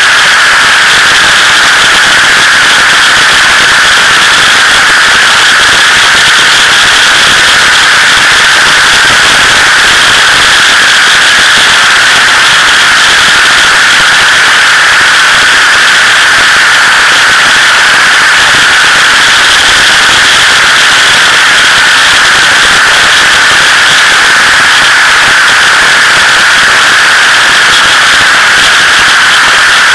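Loud, steady rush of wind noise on a motorcycle-mounted camera's microphone at highway speed, distorted into a crackling hiss with no engine note coming through.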